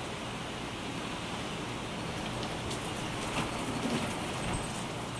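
Steady rain falling, a continuous hiss with scattered drops ticking close by. The level swells slightly a little past the middle.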